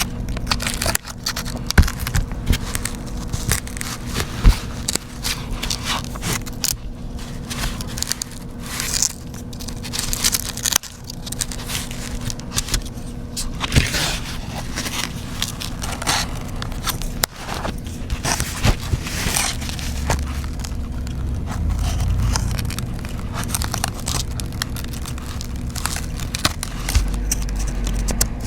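Tools scraping, clicking and crackling against an iPad in irregular short strokes, over a steady faint hum.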